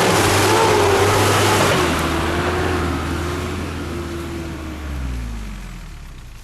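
Off-road SUV engine revving hard, then the revs drop away in a falling tone over the last few seconds as the sound fades.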